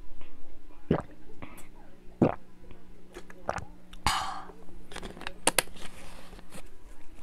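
Close-miked swallowing of water from a plastic water bottle, with two distinct gulps in the first few seconds. After that comes a short breathy burst, then a cluster of sharp clicks and crackles from the plastic bottle being handled.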